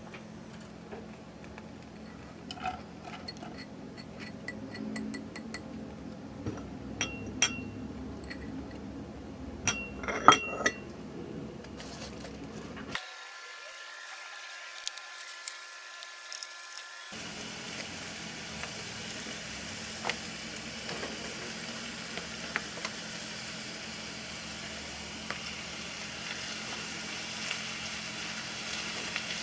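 Kitchen dishes and utensils clinking in a run of sharp clicks and taps, then, after a brief break, a steady hiss that continues for the rest of the stretch.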